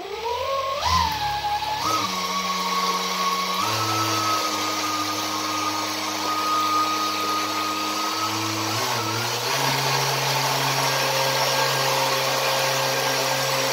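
Electric motor of a 3D-printed RC jet boat spinning its 50 mm PLA jet-pump impeller at high throttle: a whine that climbs in pitch over the first two seconds, then holds steady, shifting pitch a few times, over the rush of water being churned by the jet.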